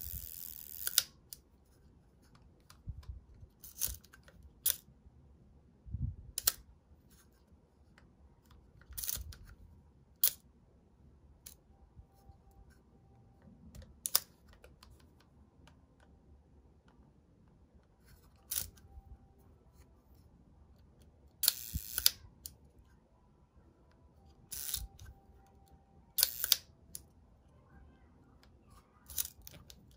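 Leaf shutter of a Carl Zeiss Sonnar 180mm f/4.8 lens in a Linhof shutter, cocked and fired over and over. About a dozen sharp clicks come at uneven intervals, some in quick pairs, mixed with light handling noise.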